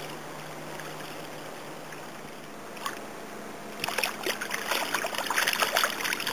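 Soft, steady trickle of water for a few seconds, then from about four seconds in a rapid run of splashing and spattering as several hooked fish thrash at the surface and are lifted clear of the water on one line.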